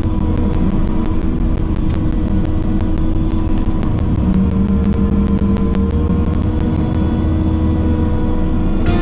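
Kubota skid steer's diesel engine running steadily at working speed, with a fast, even ticking over it.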